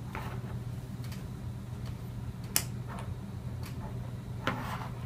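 Light clicks and taps of small plastic toy pieces being handled, with a sharp click about two and a half seconds in and another with a brief scrape near the end, over a steady low hum.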